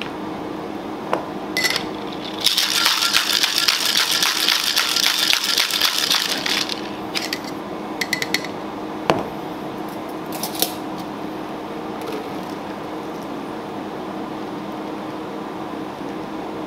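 Steel cocktail shaker shaken hard for about four seconds, a fast rattling, followed by a few sharp metallic clicks and taps as the shaker is opened and handled. A steady low hum runs underneath.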